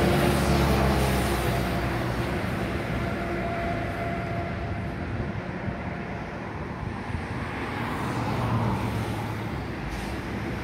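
Steady engine rumble with a few held tones, loudest at first and fading over the first few seconds into an even rushing noise.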